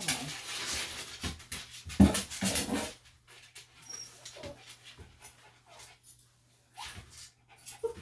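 A dog giving several short whines and yips, the loudest about two seconds in, amid light clicks and knocks.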